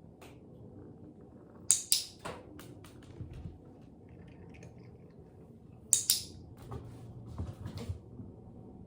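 Two pairs of sharp clicks, about four seconds apart, with softer small ticks and rustling handling noises between them.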